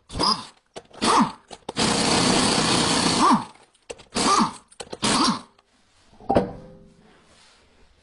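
Cordless impact wrench run in short bursts on a car wheel's lug nuts, each burst whirring up and winding down, with one longer burst of about a second and a half near the middle. A single sharp knock comes about six seconds in.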